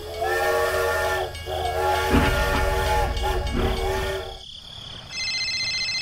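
Steam-locomotive whistle, the chord whistle of a toy steam train, sounding in several long blasts over about four seconds, with a low rumble under the first blasts. Near the end a separate high, steady electronic tone starts.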